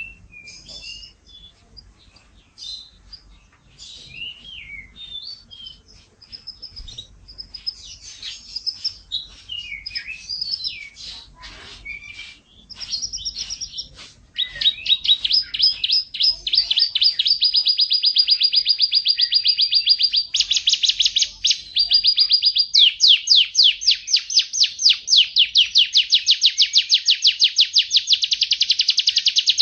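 Kenari F1 canary singing: varied chirps and short warbles at first, then from about halfway a run of long, fast rolling trills, the last one faster still.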